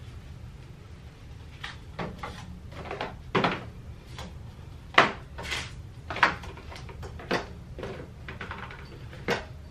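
Plastic bottles of cleaning products being set down and shuffled on a chrome wire shelf: a string of irregular knocks and clatters, the sharpest about five seconds in.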